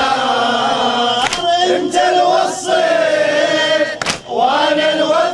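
Latmiya lament: a male reciter chanting in Iraqi Arabic at a microphone while a congregation of mourners sings along in chorus. Two strong, sharp strikes about three seconds apart, typical of latmiya chest-beating in time with the chant, with a weaker one between them.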